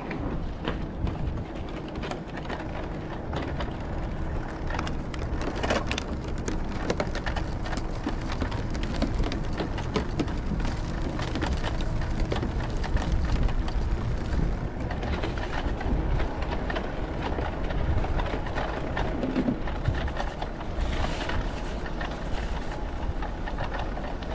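Ride noise of a bicycle on a winter street: steady low wind buffeting on the microphone, with tyre noise and frequent small crackles and rattles.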